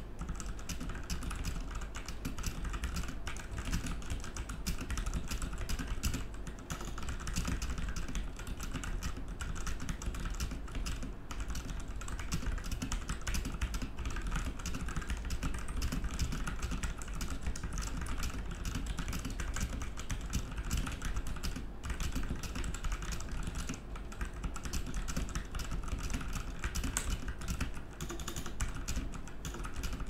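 Fast, continuous typing on a Royal Kludge RK71 mechanical keyboard with Outemu Red linear switches: a dense, steady stream of key presses with no pauses.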